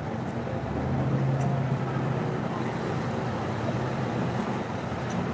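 Steady motor-vehicle engine and traffic noise, a low hum that swells for about a second, beginning about a second in, then settles back.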